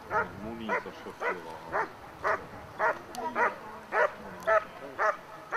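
Dog barking steadily, about two barks a second, while guarding a helper who holds a padded sleeve: the hold-and-bark of protection work.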